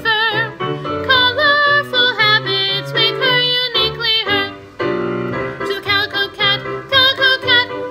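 A school chorus singing a children's song with piano accompaniment, breaking off briefly a little past halfway before going on.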